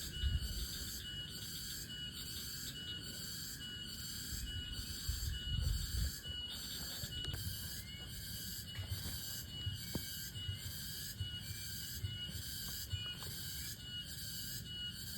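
Chorus of night insects shrilling steadily, pulsing about twice a second, with a few low rumbles on the microphone.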